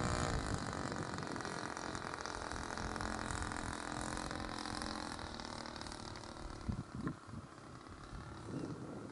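Saito 62 four-stroke glow engine of an RC model plane running steadily in flight, dropping slightly in pitch near the start and fading as the plane moves away. A few short low thumps about seven seconds in.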